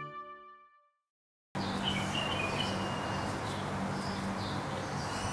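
Background music fades out, and after a brief moment of dead silence an outdoor ambience cuts in: small birds chirping a few times over a steady low hum and hiss.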